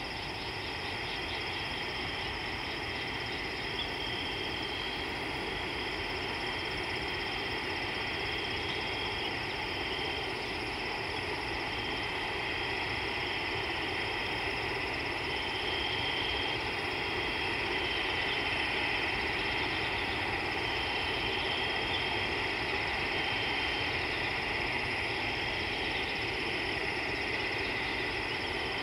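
Steady insect chorus, a continuous high chirring with some stretches briefly louder, over a constant low rumble of background noise.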